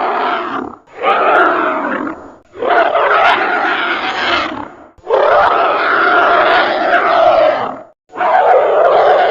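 Creature sound effect for a "demon duck": a series of long, loud calls, each lasting one to three seconds, broken by short gaps. One call ends just under a second in, three follow, and another starts about eight seconds in.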